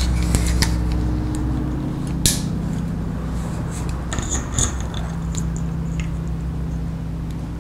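Light clicks and metallic clatter of hand-tool work, handling a ratcheting crimper and a ring terminal on a wire, with one sharper click about two seconds in. A steady low machine hum runs underneath.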